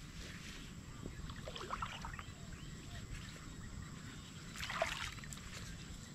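Shallow floodwater sloshing and splashing as a person wades through it, over a steady low rumble.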